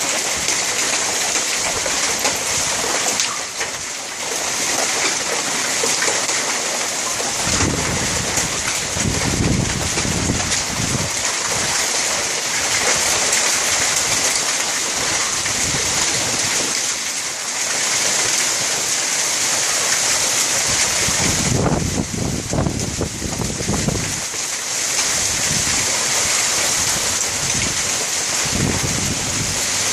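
Hailstorm: hail and heavy rain pelting the house in a dense, steady hiss. Gusts of wind rumble on the microphone a few times, about a quarter of the way in, again past two thirds, and briefly near the end.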